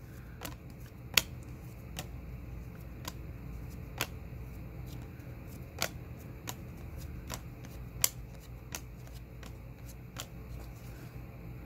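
Baseball cards being flipped through by hand in a stack, each card moved with a short, sharp click or snap at irregular intervals, roughly one a second, over a faint steady low hum.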